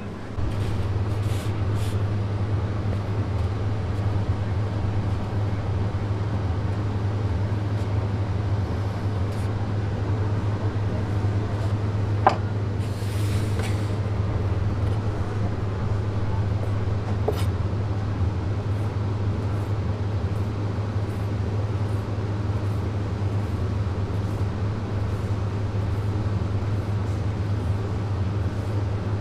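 Steady low machine hum with a few faint, scattered clicks.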